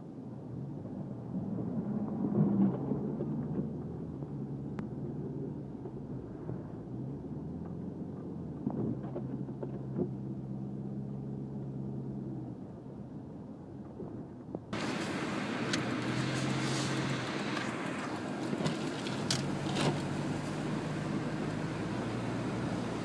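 Engine and road noise inside the cabin of a moving 1998 Subaru Legacy Outback, its flat-four's hum shifting up and down in pitch. About fifteen seconds in, the sound suddenly turns brighter, with added hiss and a few sharp ticks.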